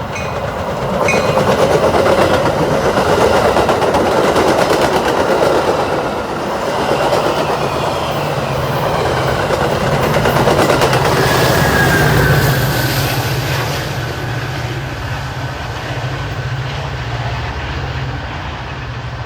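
Train passing on the rails: a loud, steady rumble of wheels and cars that eases off somewhat in the last few seconds.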